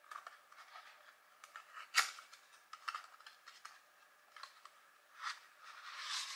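Cardboard packaging being handled and opened: scattered rustles and light clicks, with one sharper click about two seconds in and longer rustling near the end.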